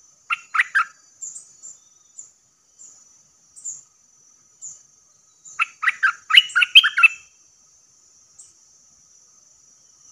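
Bulbul (merbah lekir) song used as a decoy call: a short burst of three quick loud notes at the start and a longer, louder run of quick notes about six seconds in, with soft high chirps between. A steady high hum runs behind.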